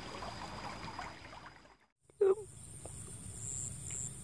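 Shallow river flowing over rocks. About halfway through it cuts out, and after a short loud call, insects chirr steadily at a high pitch with a pulsing beat of about three a second.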